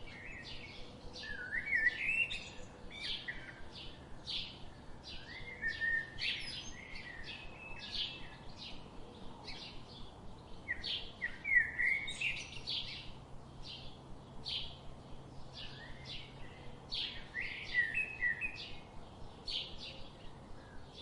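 Small birds chirping busily: quick, short high chirps several a second, mixed with brief lower warbling notes.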